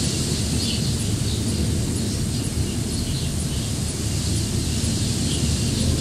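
Stormy wind gusting and buffeting the microphone as a steady low rumble with a hiss over it, and a few faint, short, high bird chirps.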